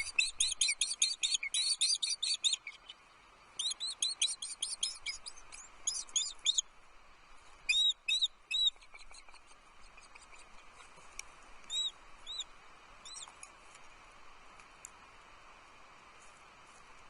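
Baby birds in a nest chirping in rapid runs of short, high calls for the first several seconds, then three louder arched notes, after which the chirps thin out to a few scattered ones.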